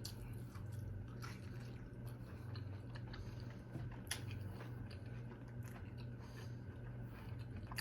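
A person chewing food close to the microphone, with faint scattered mouth clicks and smacks over a low steady hum.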